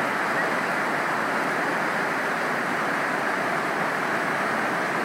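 Steady rushing of a mountain valley stream, an even water noise at a constant level.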